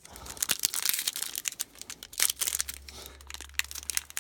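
Trading-card pack wrapper being torn open and crinkled by hand, a dense run of irregular crackles.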